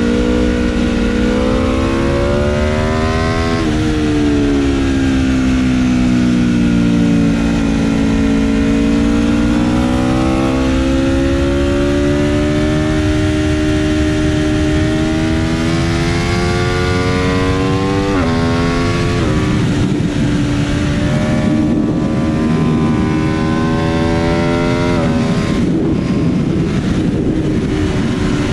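Aprilia RSV4 RF's V4 engine heard from on board at racing speed, its pitch rising and falling through corners. It is then wound up hard through the gears, with quick upshifts dropping the pitch about two-thirds of the way in and again near the end, and wind rush growing as speed builds.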